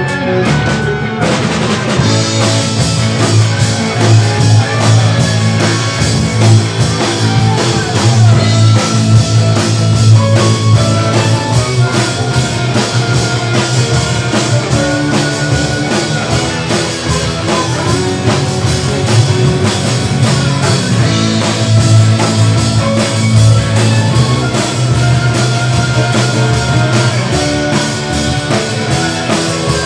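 Live jazz-rock fusion band playing: an electric violin carries sustained melodic lines over electric guitar, bass guitar, keyboards and a rock beat on the drum kit. The sound thickens about two seconds in.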